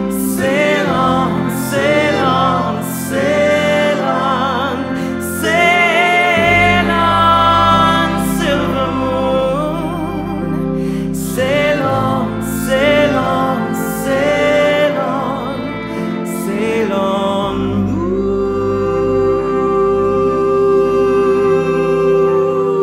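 A band playing a slow song live, with a sung melody line over sustained low chords that shift twice. The voice has wide vibrato and ends on one long held note in the last few seconds.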